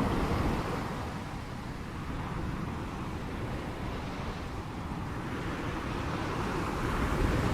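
Sea waves washing on the shore: a steady rushing that eases off about two seconds in and swells again toward the end.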